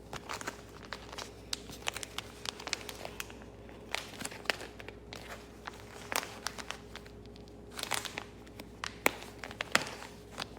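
Plastic packaging crinkling in irregular crackles as a pack of new reusable cleaning cloths is handled and opened.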